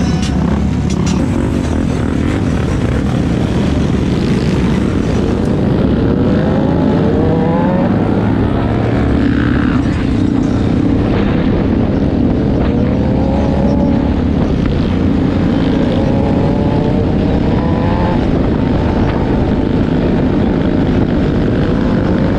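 Motorcycle engines pulling away from a stop and accelerating, a steady low drone with the pitch rising again and again as they rev up through the gears.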